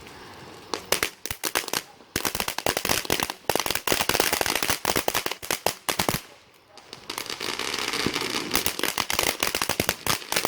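Consumer firework crackling: rapid, sharp pops in dense runs, breaking off briefly about six seconds in and then starting up again.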